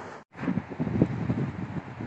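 A brief dropout, then wind buffeting the microphone in uneven low gusts.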